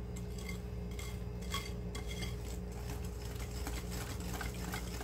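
Stainless steel balloon whisk stirring thick chocolate cake batter in a glass bowl, its wires clicking and scraping against the glass in quick irregular strokes.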